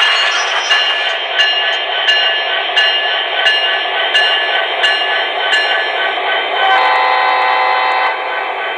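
Digital diesel-locomotive sound from an MTH HO-scale SD70ACE model's onboard speaker as it moves: the engine runs steadily under regular clicks about every 0.7 seconds. Late on, a steady multi-note tone joins for about a second and a half.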